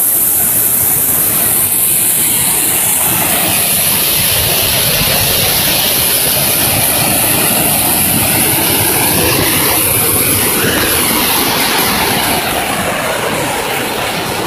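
Muddy floodwater pouring over a concrete weir in a loud, steady rush of water.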